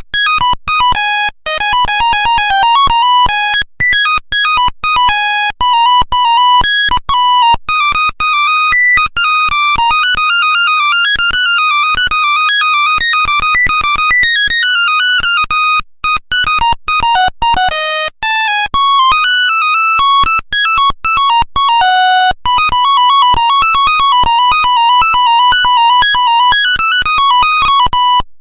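Nokia 1100 monophonic ringtone playing a fast melody of buzzy electronic beeps, one note at a time, each note starting and stopping sharply.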